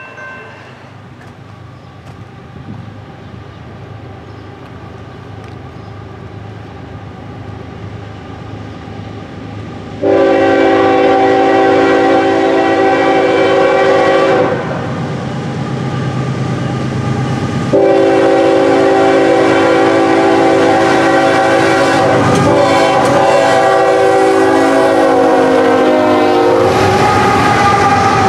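Norfolk Southern GE ES44AC diesel locomotive approaching, its rumble slowly growing, then sounding its multi-tone air horn in two long blasts, about ten seconds in and again from about eighteen seconds. The horn's pitch drops as the locomotive comes alongside near the end, then the locomotives and the container train run past.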